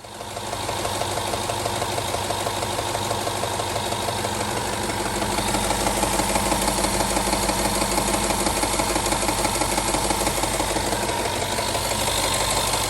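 2011 Range Rover's 5.0-litre naturally aspirated V8 idling steadily with a fast, even rattle. This is the timing chain noise of worn timing chain tensioners at 125k miles.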